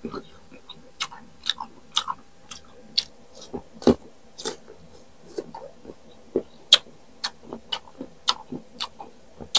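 Close-miked crunching and chewing of crisp unripe green mango, a string of sharp crunches about one or two a second.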